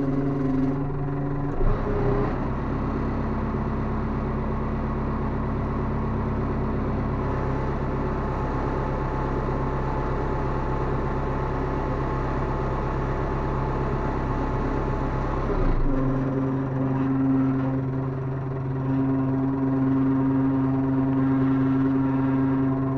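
Farm tractor engine running, heard from inside the cab while the hydraulics tip the trailer. About two seconds in the sound turns heavier and lower, staying so until about sixteen seconds, when it drops back to a steady hum.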